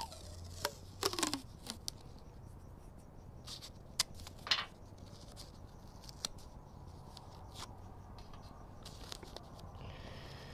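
Blue painter's tape being pulled off the roll, torn and pressed onto a motorcycle helmet shell: a few sharp rips and crackles, the loudest about a second in and again about four seconds in.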